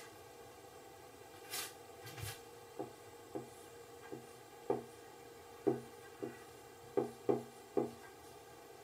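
Marker writing on a whiteboard: a couple of brief hissing scrapes, then a series of about nine short, sharp strokes over five seconds as characters are drawn.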